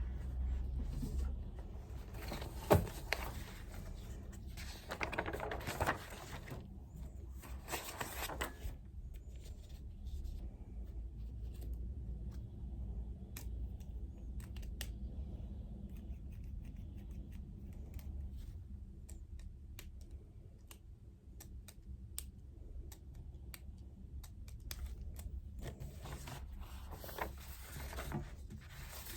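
Desk study work: several short stretches of scratchy paper sounds near the start and again near the end, with scattered light clicks in between, over a steady low room hum.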